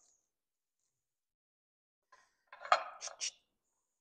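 Near silence, then about two and a half seconds in a brief cluster of three light clinks of glassware or dishes being handled.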